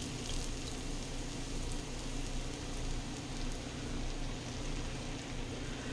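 Bud Light Platinum beer poured from its bottle into a pot of hot melted butter, foaming with a steady fizzing hiss.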